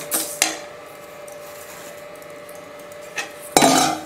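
Dry raw rice grains being stirred and scraped around a metal kadai with a steel spoon while it is dry-roasted. There are a couple of short scrapes near the start and a longer, louder scrape near the end, over a faint steady hum.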